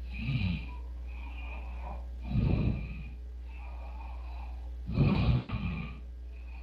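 A sleeping man snoring like a pig: three rough, snorting snores about two and a half seconds apart, over a steady low hum.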